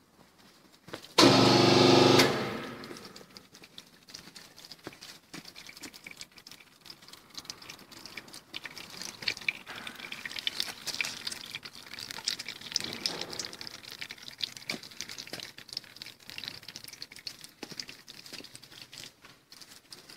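Hydraulic cocoa butter press at work, its pressed cocoa butter draining into a filter bag. About a second in, a loud steady pitched sound lasts about a second and cuts off. Then comes a long run of fine crackling and ticking.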